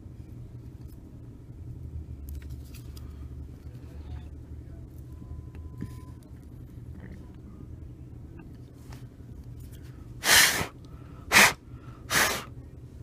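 Faint clicks and taps of a smartphone's plastic frame and screen parts being handled, over a steady low hum. Near the end come three short, loud rushing noises about a second apart.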